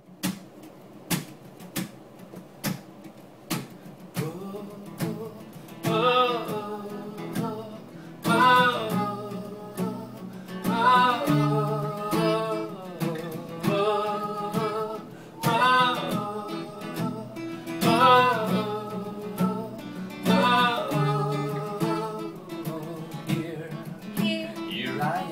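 An acoustic guitar is played in even strokes. About six seconds in, a man and a woman start singing a melody over it, in phrases of a couple of seconds each.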